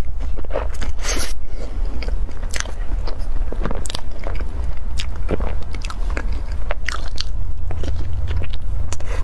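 A person biting and chewing crumb-coated fried balls: irregular crisp crunches and wet mouth clicks, several a second, over a steady low hum.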